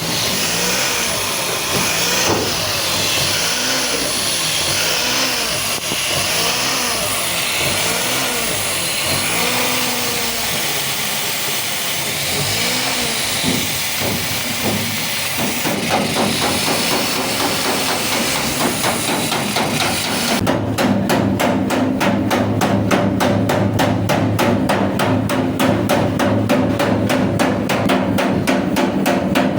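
Engine running with a fast, even knocking of about five strokes a second, the kind of rough running the title puts down to a misfire and fuel injectors leaking air. For the first half there is a hissing with a pitch that rises and falls about once a second; the knocking takes over about halfway through.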